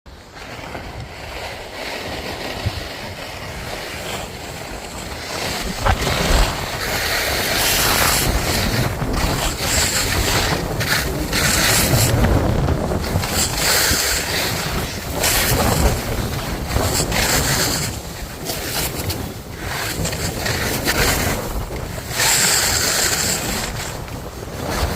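Wind rushing over the microphone while skiing downhill. Ski edges scrape across the snow in a hiss that surges every second or two as the skier links long carved turns.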